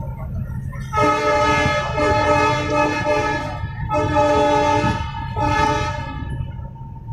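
Train horn sounding a long blast and then two shorter ones, starting about a second in, over the low rumble of a train rolling over the yard tracks.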